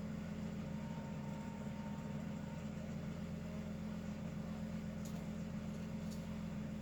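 Steady low hum with a hiss over it, and two faint ticks near the end; no snore or breathing rhythm stands out.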